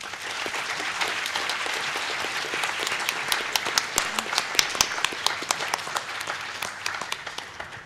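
Audience applauding: a dense patter of many hands clapping, with a few sharp, louder claps close by standing out from a few seconds in, easing off near the end.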